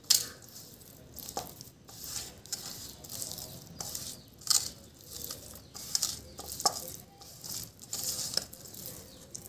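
Fingers mixing dry spice powders and a little curd in a stainless steel kadai, scraping and rubbing across the metal bottom in irregular strokes, with a few sharper ticks against the pan.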